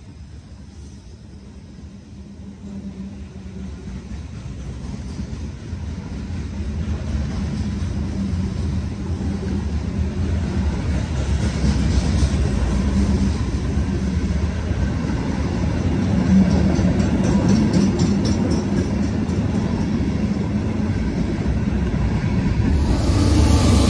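Freight train's hopper cars rolling past close by: a steady low rumble of steel wheels on rail that grows louder over the first ten seconds or so, with runs of wheel clatter.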